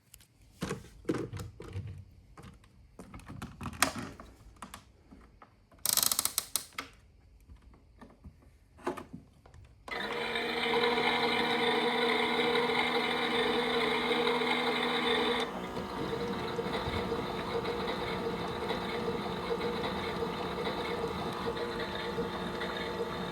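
Miele Novotronic W377 washing machine: scattered clicks and knocks, with a short loud rush about six seconds in. About ten seconds in a steady mechanical running sound with hiss starts abruptly, then settles to a slightly quieter, steady hum about five seconds later.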